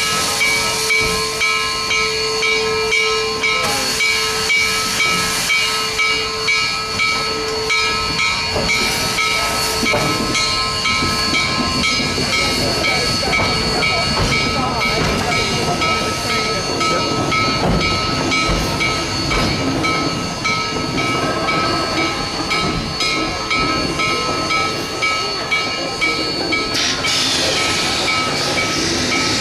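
Western Maryland No. 734, a 2-8-0 steam locomotive, hissing steam steadily at slow work, with a regular pulsing beat of about two a second and a few faint steady tones.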